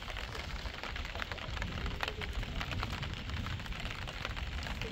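Rain falling: a steady hiss broken by many small, sharp drop ticks, over a low rumble.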